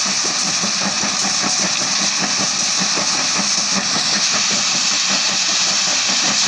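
Small aggregate crushing plant running steadily, its crusher and rotating drum screen crushing and screening stone. There is a continuous mechanical drone with a dense, irregular rattle of stone.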